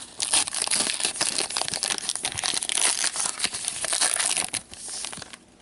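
Hockey-card pack wrapper crinkling and tearing as it is cut open and pulled apart, a dense crackle that stops suddenly near the end.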